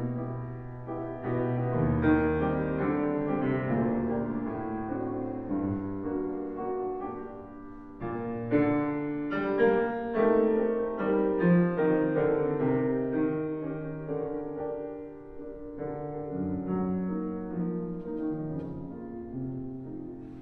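Slow piano music playing in the background, single notes and chords that start and fade one after another.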